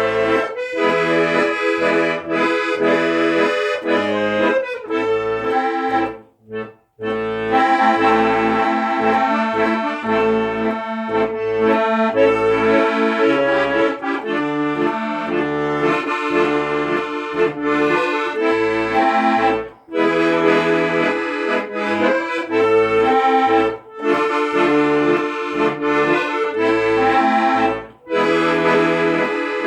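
Instrumental folk tune played on an accordion: melody notes over a steady oom-pah bass accompaniment. It breaks off briefly about six seconds in, then carries on.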